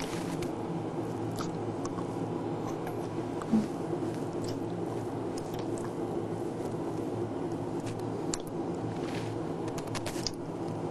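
Two people kissing: small wet lip smacks and clicks scattered over a steady low hum of room noise, with one short low knock about three and a half seconds in.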